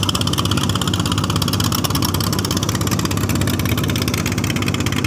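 A wooden boat's engine running steadily, with a fast, even firing beat.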